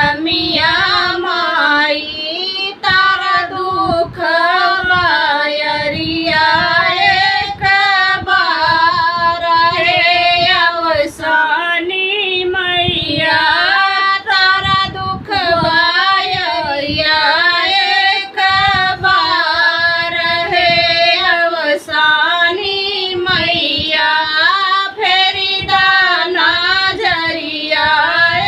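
A woman singing an Awadhi devotional folk song to the goddess Ausani Mata, one continuous line of song with short breaks for breath.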